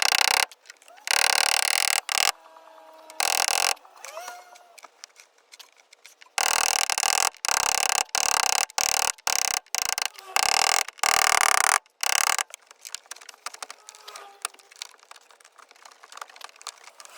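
A small electric power tool, such as a cordless driver, running in repeated short bursts that start and stop abruptly, with faint handling noise in the gaps.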